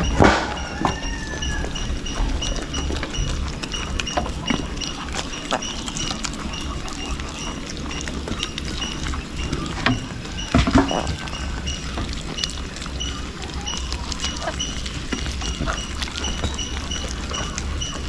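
Young goats eating banana peels from a hand at a wooden slatted pen: rustling and chewing with a few sharp knocks, the loudest just after the start and around ten seconds in. A high chirping repeats steadily about four times a second behind it.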